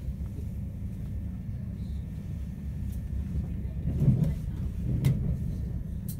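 Moving passenger train heard from inside the carriage: a steady low rumble, with two louder knocks about four and five seconds in and a few sharp clicks.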